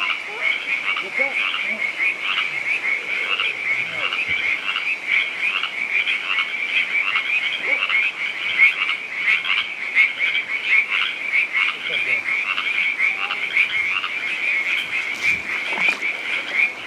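Dense chorus of frogs calling at night, many pulsed calls overlapping into a steady high-pitched trilling, with a couple of brief clicks near the end.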